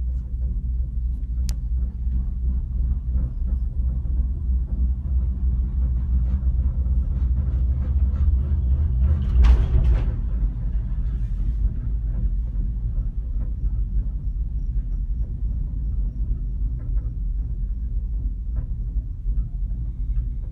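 Steady low rumble of an enclosed gondola cabin riding up its cable, with a sharp click about a second and a half in and a brief louder swell about nine seconds in.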